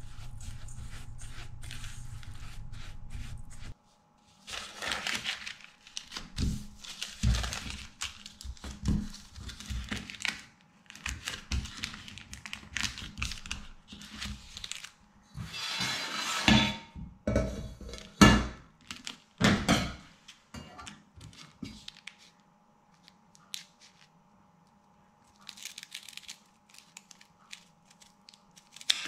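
Baking paper being handled and creased by hand on a stainless steel worktable, crinkling and rustling in irregular bursts with sharp crackles, loudest around two-thirds through. Near the start a spatula scrapes crumbs in a metal bowl over a low hum, and scissors snip the paper at the very end.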